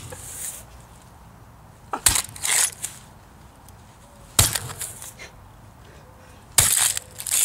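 Three hammer blows on an old floppy disk drive, about two seconds apart, each a sharp hit followed by a short rattle.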